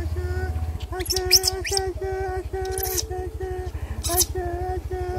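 A baby monkey calls over and over in short, even, pitched cries broken by a few shrill squeaks. A low engine idles steadily underneath from about a second in.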